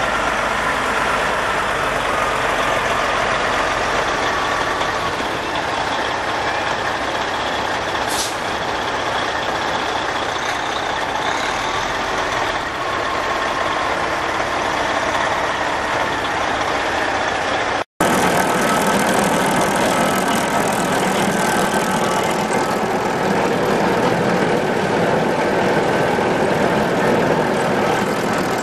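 Detroit Series 60 12.7-litre six-cylinder turbo diesel of a Freightliner FLD truck running steadily. There is a brief hiss about eight seconds in and a sudden break about eighteen seconds in, after which the engine is heard again, a little louder.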